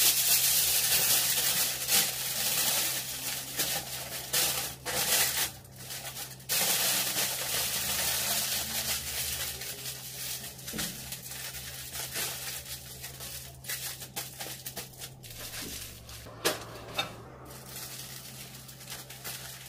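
A thin crinkly wrap sheet rustling and crinkling as it is pulled over hair and tucked in around the head. It is loudest for the first five seconds or so, then turns to softer rustling with a couple of sharp crackles near the end.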